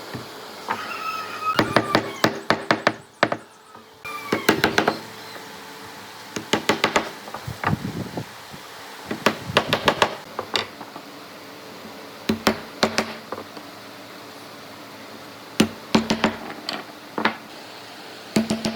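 Hammer knocking on wood in quick runs of strikes, several bursts with short pauses between them.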